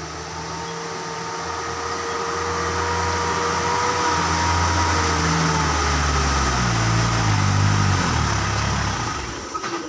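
Isuzu Elf light truck's diesel engine labouring up a steep climb, growing louder as it comes close. Its note rises in steps about six to eight seconds in, then drops away near the end.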